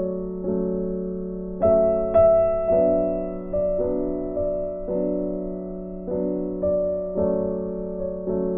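Background piano music: soft chords struck every half second to a second, each fading before the next.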